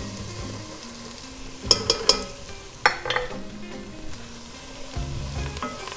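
Butter and onions sizzling gently in a stainless steel pot as flour is sprinkled in and stirred, with a few sharp knocks about two and three seconds in.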